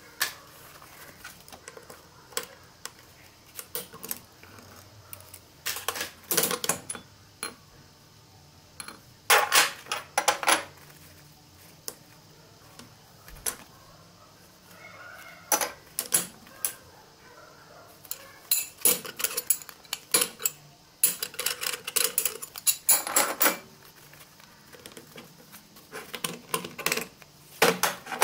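Steel parts of a ZF 16S151 truck gearbox clinking and knocking as they are handled and set down during teardown. The clanks come in irregular bunches, several seconds apart, with quiet stretches between.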